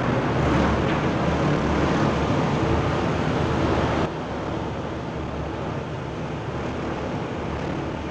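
Steady noise of a car ferry under way at sea: the ship's engine rumble mixed with water rushing along the hull and wind on the microphone. The level drops suddenly about four seconds in, then goes on steady and quieter.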